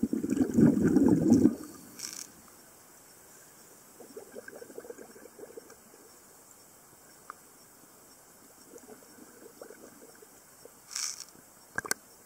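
Water rushing and bubbling around a submerged camera, loudest for about the first second and a half. After that come faint small sloshing and lapping sounds with the camera at the pool surface, then a short hiss and a couple of sharp clicks near the end.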